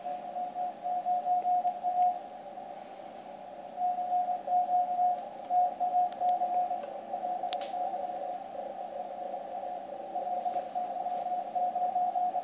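Morse code (CW) signal on the 80 m band, heard through a Yaesu FTdx1200 transceiver: a single steady tone keyed on and off in dots and dashes over faint band hiss, with a break in the keying around two to four seconds in. One sharp click about seven and a half seconds in.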